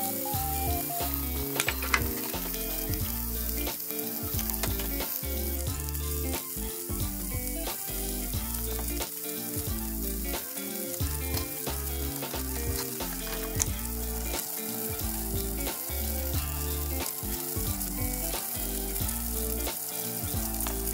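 Bacon-style pork belly wrapped around skewered dango sizzling steadily as it fries in oil in a square frying pan, with a few sharp taps, and background music underneath.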